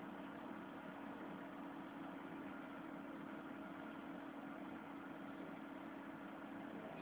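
A faint, steady machine hum over an even hiss, unchanging throughout.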